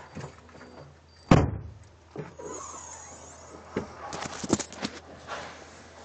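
A car door shutting with one heavy thud about a second in. Rustling and several light clicks and knocks follow as the camera is picked up and moved.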